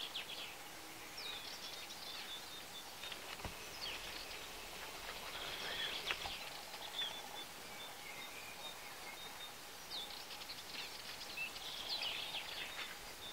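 Small songbirds chirping and singing in the woodland: short, high calls and brief trills scattered throughout, over a faint steady hiss.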